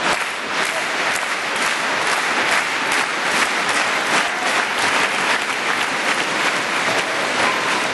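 Crowd applauding a point just played, a dense, steady clapping of many hands with scattered sharper claps standing out.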